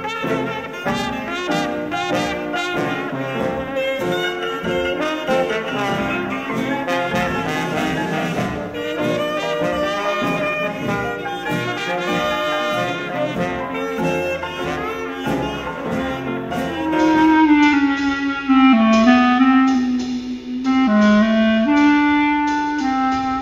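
Instrumental jazz-style background music with horns. About two-thirds of the way through it thins out to a slower, sparser melody line.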